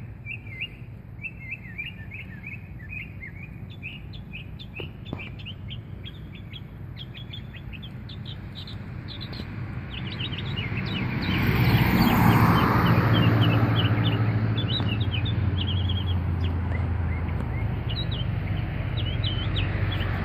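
Small birds chirping over and over throughout, in quick short notes. About halfway through, a passing vehicle's engine and road noise swells up and then slowly fades, the loudest sound.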